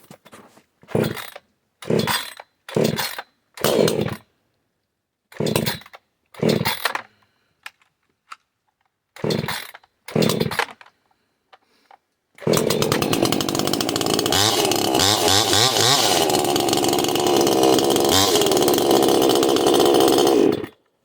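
Brand-new Proyama two-stroke chainsaw being pull-started for the first time on choke: about eight short bursts as the starter cord is pulled, then about twelve seconds in it starts and runs steadily, its pitch rising and falling, before cutting off suddenly near the end.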